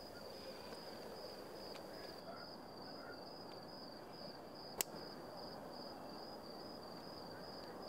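Crickets chirping faintly in a steady, evenly pulsed rhythm over quiet evening outdoor ambience, with a single sharp click about five seconds in.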